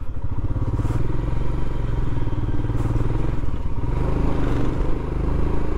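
Motorcycle engine running steadily while the bike is ridden along the road, a low, rapidly pulsing engine note heard from on the bike.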